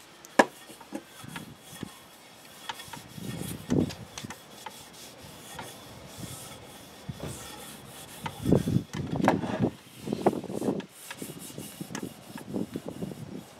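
A hand rubbing boiled linseed oil into a hickory adze handle, skin sliding over oiled wood in irregular strokes. One sharp click about half a second in.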